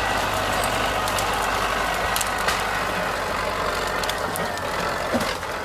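MTZ-82 tractor's four-cylinder diesel engine running steadily as the tractor pushes through brush and small trees, with a few sharp cracks over the engine.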